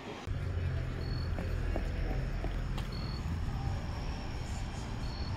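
Outdoor night ambience picked up by a phone's microphone while walking: a steady low rumble, and a short high chirp about every two seconds, like an insect calling. The rumble comes in about a quarter second in.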